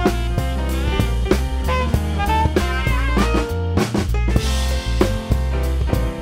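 Live instrumental hip-hop/jazz band: a drum kit plays a steady beat under an electric bass line, with an alto saxophone playing melody. The bass and kick drop out briefly just past the middle, then come back in.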